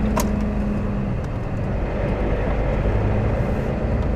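Heavy goods vehicle's diesel engine running steadily, heard from inside the cab, with one short click a moment in.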